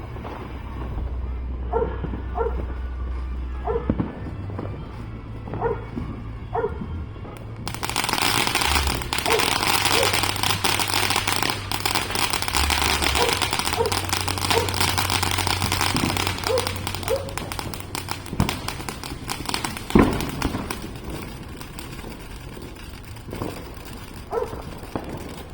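A firework fountain sprays with a loud, crackling hiss, starting about eight seconds in and dying down after about eleven seconds. A dog barks on and off throughout, and a single sharp crack comes just after the hiss ends.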